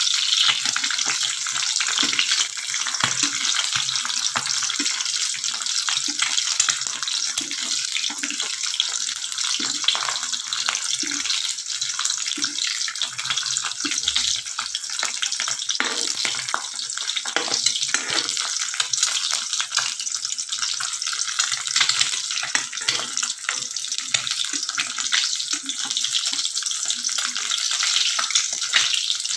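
Fried rice sizzling steadily in a hot pan while it is stirred, with repeated scraping and knocking of the utensil against the pan.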